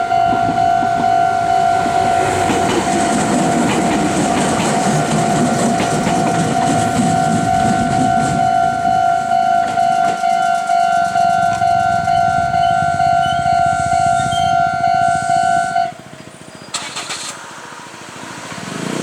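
Level crossing alarm ringing steadily while a Meitetsu 6800 series electric train passes over the crossing with a rumble and clatter of wheels. The alarm cuts off suddenly about 16 seconds in, the signal that the crossing is clear.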